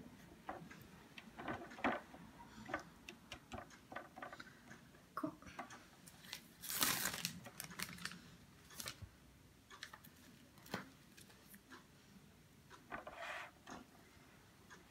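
Dry lasagne sheets being handled and laid in an enamel baking tin: scattered light clicks and taps, with a longer rustle about seven seconds in and a shorter one near the end.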